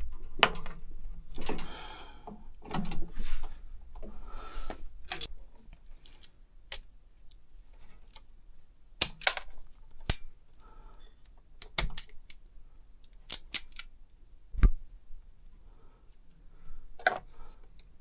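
Hand tools working on a heating element's wire terminal: wire strippers and pliers clicking and snipping, with rustling of handling in the first few seconds and one heavier knock about two-thirds through.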